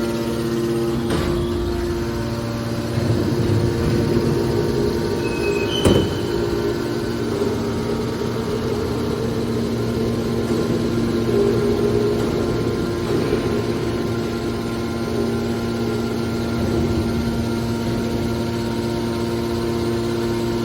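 Hydraulic scrap metal baler running: a steady hum from its motor and hydraulic pump, with a sharp metallic clank about six seconds in.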